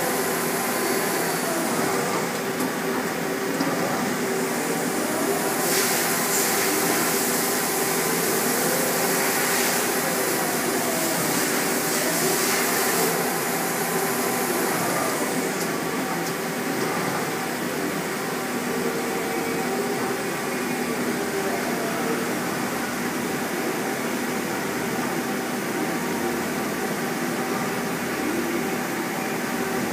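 Fortune VTurn 26 II CNC turning center running: a steady machine hum with several steady tones, and whining tones that rise and fall in places. A louder hiss comes in from about 6 to 13 seconds.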